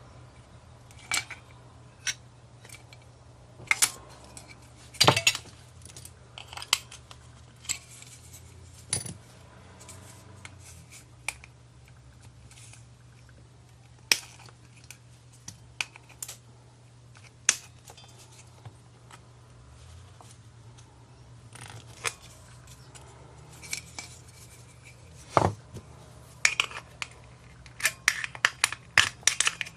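Small plastic and metal parts of a dismantled battery body massager being handled and set down on a work surface: scattered clicks and clinks with a few sharper knocks, coming in a quick run near the end. A steady low hum runs underneath.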